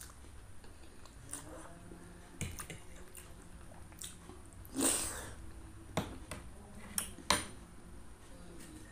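Close-miked eating of instant noodles and egg meatballs in spicy broth: chewing with scattered wet mouth smacks and sharp clicks, the loudest a short noisy sound about five seconds in.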